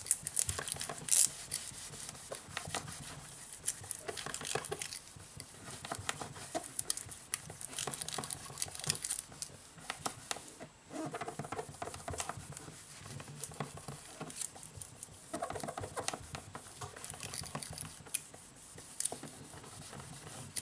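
Paper napkin rubbed and pressed by hand over a smartphone's freshly glued glass display: dense scratchy rubbing strokes, with a low steady hum underneath. The pressing seats the new display module flat on its adhesive.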